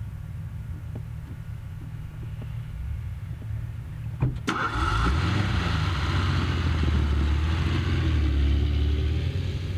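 Car engine running with a steady low rumble. About four seconds in there is a sharp click, then the engine and road noise get louder and the engine note slowly rises.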